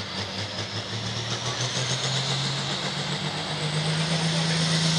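Turbocharged diesel engine of a John Deere Pro Farm pulling tractor revving up at the start line, its note climbing slowly and getting louder, with a high whine rising alongside.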